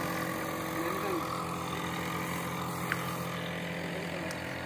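A steady engine hum, with one short sharp click about three seconds in.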